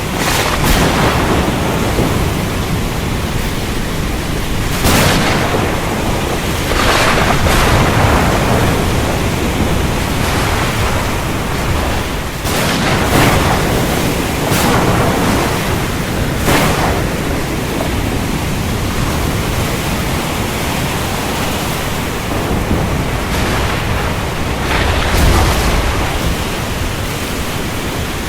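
Heavy rain falling steadily, with sharp cracks of thunder every few seconds and a deeper low rumble near the end.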